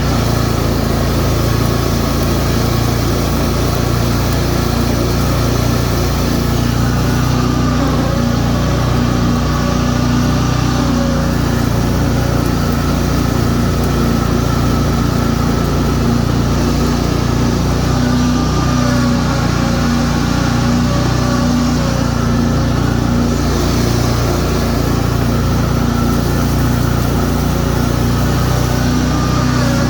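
A Cub Cadet 50-inch zero-turn mower's 21 hp Briggs & Stratton engine running steadily at high throttle with the cutting blades engaged, mowing grass. The pitch dips and recovers slightly a few times under the load of the cut.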